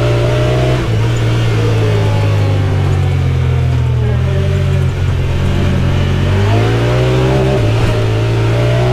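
Side-by-side UTV engine running under way with a steady low drone; its pitch eases down early on and climbs again as it accelerates from about six and a half seconds in.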